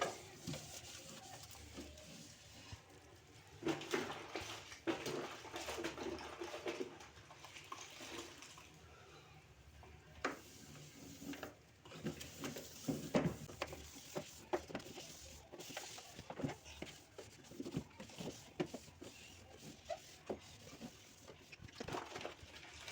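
A damp towel wiping and rubbing the plastic inside of a fridge, with scattered light knocks and clicks as it works around the shelf supports.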